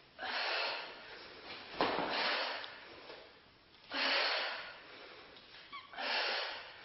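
A woman breathing hard from exertion during a bodyweight exercise: four forceful exhalations, about one every two seconds.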